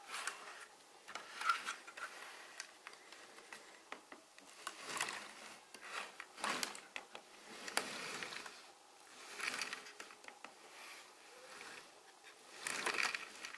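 Plastic building-brick tank model being handled on a wooden table: rubbing and scraping noises with small plastic clicks, in several separate short bursts.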